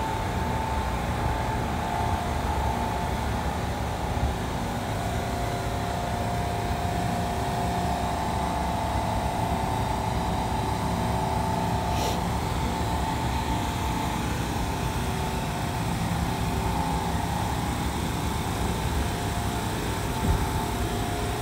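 Steady road traffic noise with a constant mechanical hum over it.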